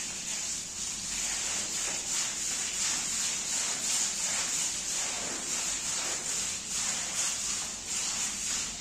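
A wet rug being cleaned: a steady hissing swish with repeated strokes a few times a second.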